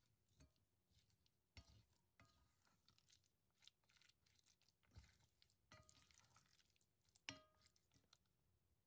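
A wooden spoon stirs and mashes thick cooked red beans (adzuki) in an enameled cast-iron pot, making faint wet squelching and scraping sounds. The spoon knocks the pot a few times, and each knock rings briefly; the sharpest comes a little after seven seconds in.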